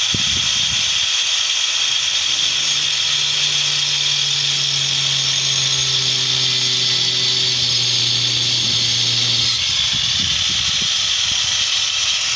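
Electric power tool running continuously at a steady speed on wood, giving an even high-pitched whine and hiss.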